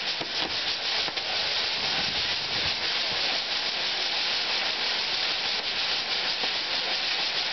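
Maltese ground fireworks (nar tal-art): a star-shaped set piece's fountains spraying sparks with a steady loud hiss and light crackling.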